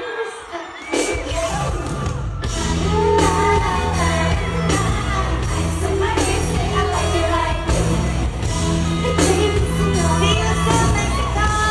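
Pop song played over a stage sound system, with women singing along live into microphones. A heavy bass line comes in about a second in.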